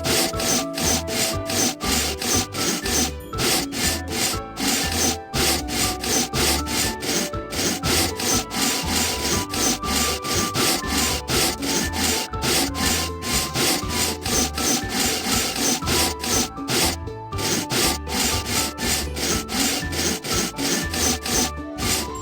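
Saw cutting through wood in fast, even, rasping strokes that repeat steadily, with music playing underneath.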